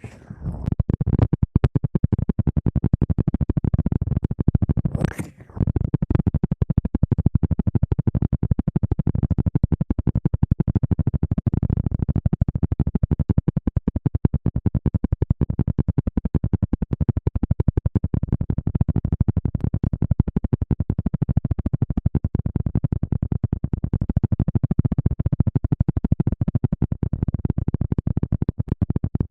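Fast, continuous scrubbing and scratching right on a microphone, like ASMR hair washing, with a brief break about five seconds in.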